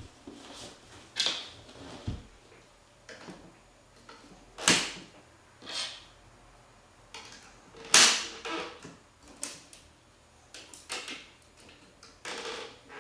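Hard plastic marble-run parts clicking and knocking as track pieces and connector arms are handled and fitted onto a plastic-tube tower frame, at irregular moments, with two louder knocks about five and eight seconds in.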